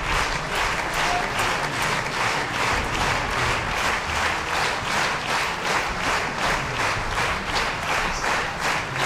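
Theatre audience applauding, the clapping falling into a steady rhythm.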